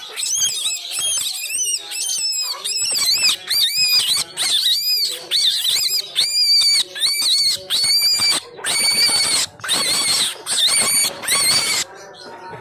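Black baby rabbit, about 25 days old, screaming in fright at being caught and held by hand for the first time. It is a rapid run of shrill, arching cries, two to three a second.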